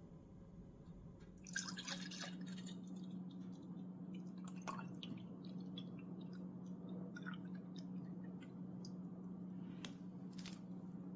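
Apple juice being poured from a bottle into a glass, with a splash about a second and a half in, then soft drips and small trickling ticks, over a steady low hum.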